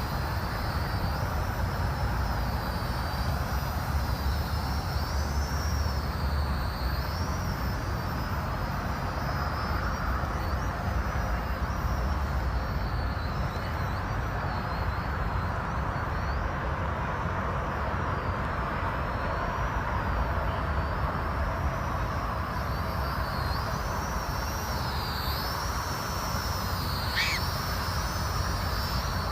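Small quadcopter drone flying, its rotors giving a high whine that wavers up and down in pitch as the throttle changes, over a steady low rumble. A brief sharp chirp falls in pitch near the end.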